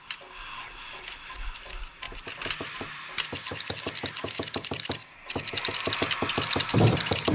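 Rapid mechanical clicking, like a ratchet or clockwork, starting slowly and speeding up into a dense rattle. It breaks off briefly about five seconds in, then comes back faster and louder. A low rumble swells in near the end.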